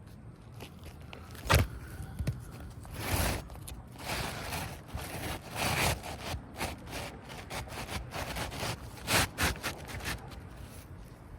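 Asphalt roof shingles being worked loose by hand: scraping and rustling stretches broken by sharp knocks, the loudest about a second and a half in and again near nine seconds.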